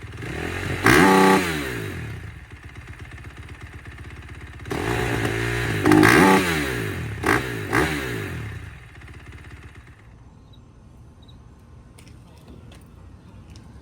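KTM 450 SMR supermoto's single-cylinder four-stroke engine running and being revved: a short blip about a second in, a longer rev that climbs and falls back around the middle, and two quick blips a little later. About ten seconds in the engine sound drops away to a much quieter low hum.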